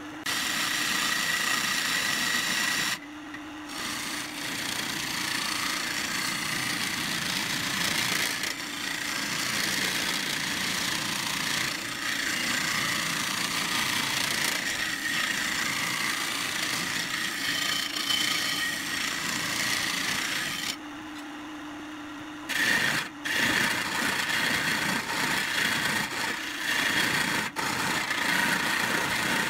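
Wood lathe spinning a pine vase blank while a hand-held turning chisel cuts it: a steady hiss of shaving wood over the lathe motor's hum. The cutting stops briefly about three seconds in and again for a second or two around twenty-one seconds, leaving only the hum.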